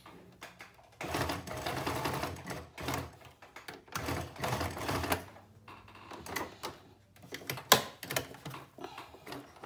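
Sewing machine stitching: a steady run of rapid stitches for about four seconds starting a second in, then a few short bursts and a sharp click near the end.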